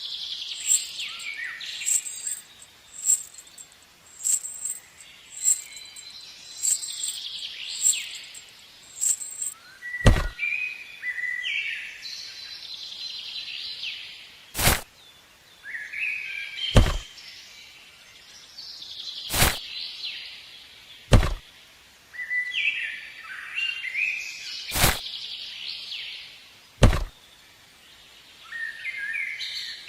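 Birds chirping and calling over and over, with a sharp knock every few seconds, about seven in all, in the second half.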